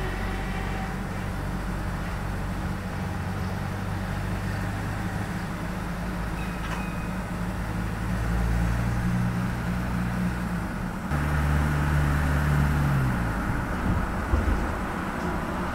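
Mercedes-Benz eActros battery-electric truck rolling slowly along the street: a low steady electric hum with tyre and road noise and no diesel engine sound. The hum changes pitch and gets louder about 11 seconds in.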